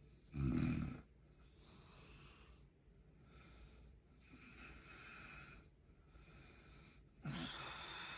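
A man snoring in his sleep: two loud snores, one about half a second in and another near the end, with quieter breaths between them.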